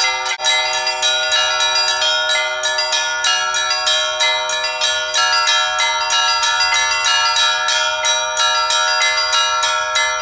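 Russian Orthodox church bells ringing in a full peal: many bells struck in a quick, even rhythm over the long, steady ring of the larger bells.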